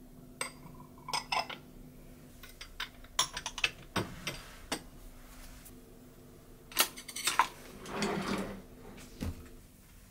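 Glass bowls and dishes clinking and knocking together as they are handled, in scattered clusters. Later a kitchen drawer of wooden and metal utensils is opened, with a quick rattle of cutlery and a short scrape.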